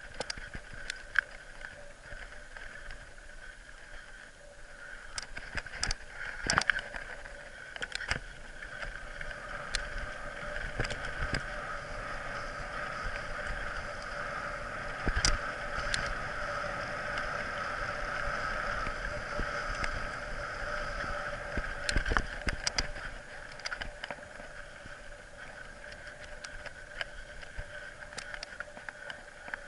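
Mountain bike rolling fast over a dirt singletrack, heard from a camera mounted on the bike: a steady rolling and rattling noise with scattered sharp knocks as the bike hits bumps, louder through the middle.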